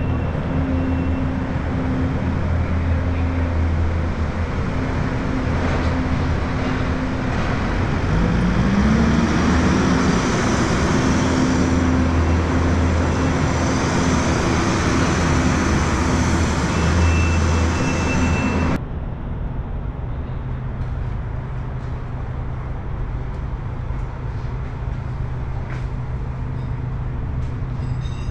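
Suzuki V-Strom 800DE's parallel-twin engine running under way over a rush of road noise; its pitch rises about eight seconds in as it picks up revs, then holds. About two-thirds of the way through, the sound cuts abruptly to a duller, steadier low drone.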